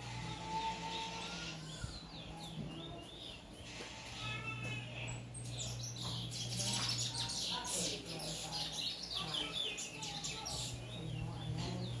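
Caged Trinidad bullfinch (chestnut-bellied seed finch) singing: quick high chirping phrases repeated over and over, with a steady low hum underneath.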